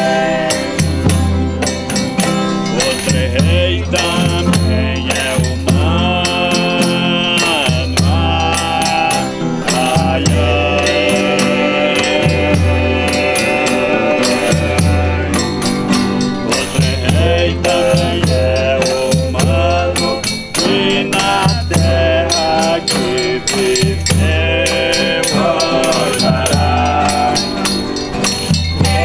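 A Folia de Reis troupe singing a devotional song together, with strummed violas and a tambourine keeping a steady rhythm of jingles.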